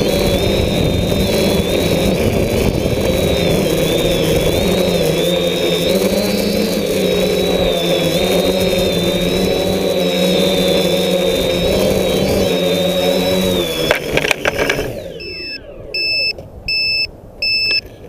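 DJI F550 hexacopter's six motors and propellers whining steadily with a wavering pitch, over rough wind buffeting on the onboard camera's microphone. About fourteen seconds in there are a few sharp knocks as the craft touches down, the motors spin down, and then a few short high beeps follow at even spacing.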